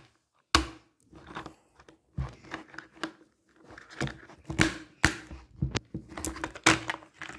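Plastic toy tool set pieces being handled and fitted together: irregular clicks, knocks and rattles of hard plastic parts against each other and the table.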